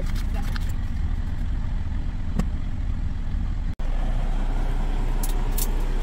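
Semi-truck's diesel engine idling, a steady low rumble heard inside the cab, with a few light handling clicks over it and a brief break partway through.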